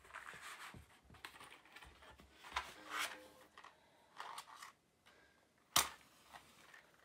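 A box of matches handled and slid open, with rustles and small clicks, then a match struck once on the box near the end, a short sharp scrape as it flares alight.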